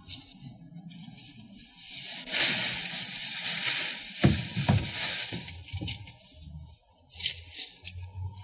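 Leaves pouring and rustling out of a mower's bagger catcher bag into a plastic yard-waste cart, starting about two seconds in, with two thumps at about the halfway mark.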